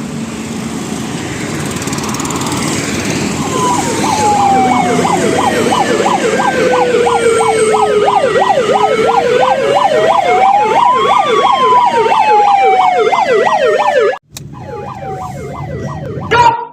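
Ahuja electronic car hooter, a police-style siren, sounding after a few seconds of steady vehicle noise: a fast warbling yelp layered over a slower wail that falls, rises and falls again. It cuts off suddenly about fourteen seconds in.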